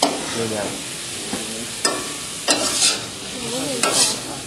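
Rice noodles sizzling in hot oil in an iron wok, with a metal spatula scraping and tossing them against the wok in a few sharp strokes.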